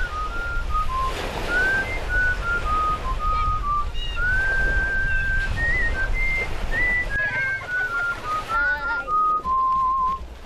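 A tune whistled as a single clear melody line, stepping from note to note with some notes held and a wavering vibrato near the end, over a steady low rumble.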